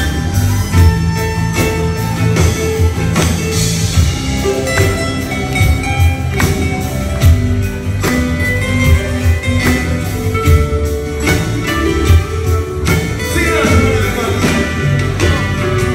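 Live acoustic band music: acoustic guitars and hand percussion over a steady beat, with a singer's voice.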